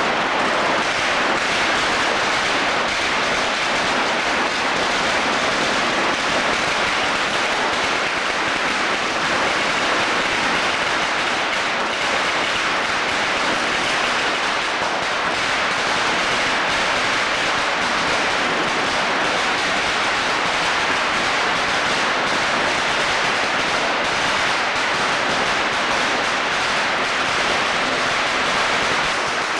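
Many firecrackers going off continuously, their pops merging into a steady, dense crackle.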